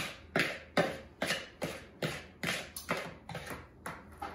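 Two knives cutting butter into dry ingredients in a plastic mixing bowl: a steady run of quick strokes, about two to three a second, stopping at the very end.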